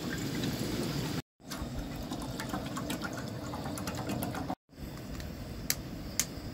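Water poured from a plastic water bottle into a saucepan, a steady splashing fill that cuts out abruptly twice. A couple of sharp clicks near the end.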